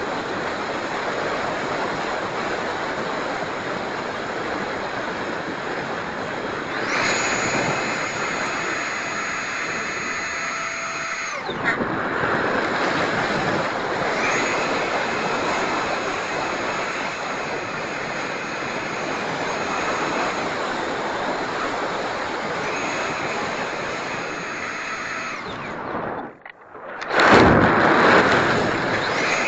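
Electric ducted fan of a Habu STS RC jet whining in flight over a steady rushing noise. The whine comes in several stretches, changing pitch with throttle. Near the end the sound cuts out for a moment, then a loud rush follows.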